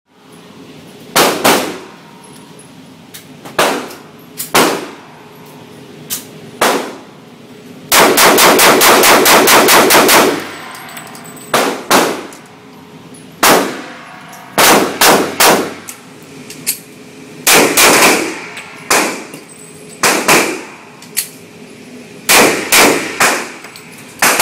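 Handgun shots echoing in an indoor firing range: single shots and quick pairs a second or two apart, with a fast even string of about a dozen shots from about eight seconds in.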